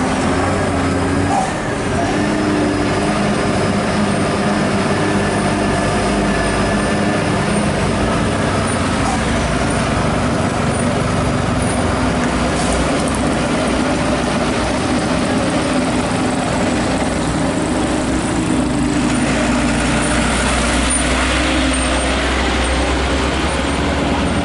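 Heavy truck diesel engine running steadily under load, with several engine tones held level. The low rumble grows heavier about three quarters of the way through.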